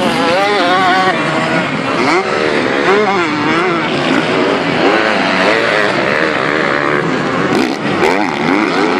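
Motocross bike engines revving, their pitch repeatedly rising and falling as the riders work the throttle around the dirt track. There are a few sharp knocks about a second before the end.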